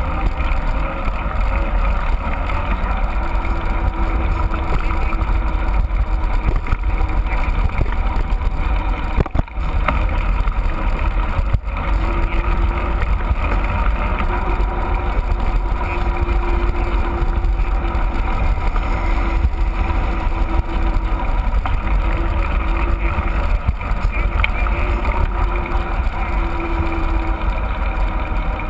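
Mountain bike being ridden: steady wind rush on the microphone with tyre and trail rumble. It dips briefly about nine and a half seconds in.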